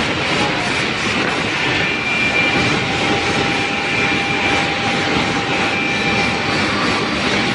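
Woodworking machine running steadily: a loud, even mechanical noise with faint held tones and no separate strokes.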